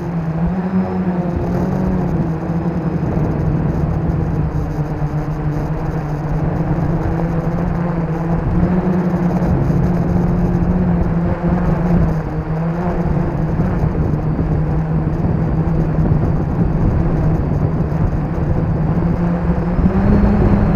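Motors and propellers of a 450-size quadcopter, heard from its onboard camera, whirring steadily with wind rush. The hum's pitch wavers and shifts up and down as the throttle changes, and rises briefly near the end.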